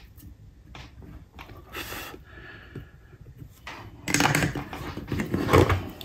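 Light clicks and taps of small tools and parts being handled at a workbench, then louder, denser handling noise for about the last two seconds.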